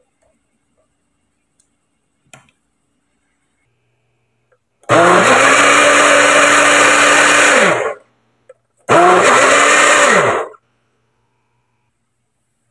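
Imarflex personal blender's motor whirring loudly as it purees cucumber slices, run in two bursts: about three seconds, a one-second pause, then about a second and a half. Each time, the motor pitch rises as it spins up and falls as it winds down.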